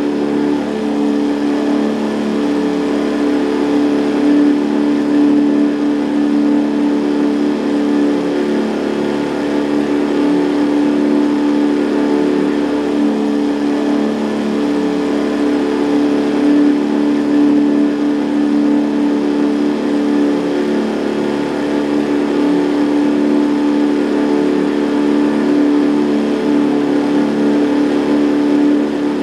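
Boat's outboard motor running steadily at a constant speed, an even engine drone that holds the same pitch throughout.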